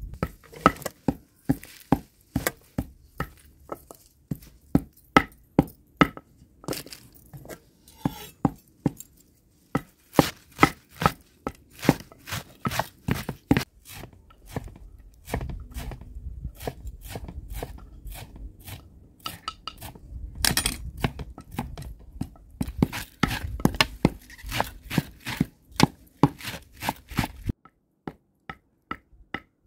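A knife chopping a bunch of fresh green herbs: quick, sharp chops a few per second in runs with short pauses, stopping near the end.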